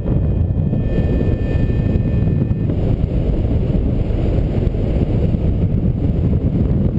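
Airflow rushing and buffeting over the microphone of a paraglider pilot's harness-mounted camera in flight, a steady rumbling. A thin steady tone sounds over it for about the first two and a half seconds.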